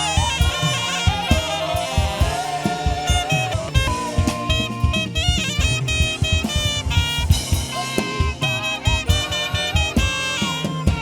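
Saxophone playing a lively melody with bending, gliding runs over a live band with a steady drum-kit beat.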